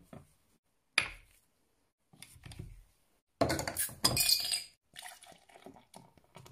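Glass knocks on a table, a glass beer bottle is opened, then beer is poured into a glass tumbler near the end.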